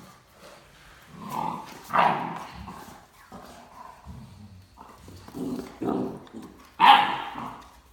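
A Great Dane barking in play: a series of about five short barks, the loudest about two seconds in and near the end.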